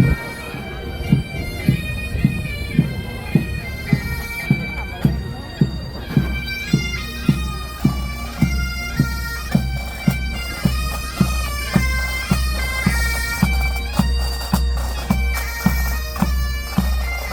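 A military pipe band playing a march: bagpipes carry a stepping tune over the drone, and a bass drum keeps a steady marching beat.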